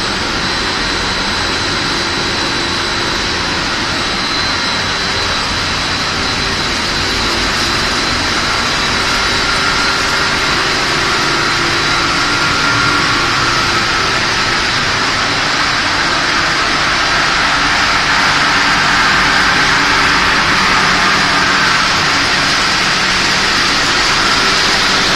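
Machinery of a twin-screw corn puff extrusion line running: a loud, steady mechanical din with a faint high whine, growing slightly louder in the second half.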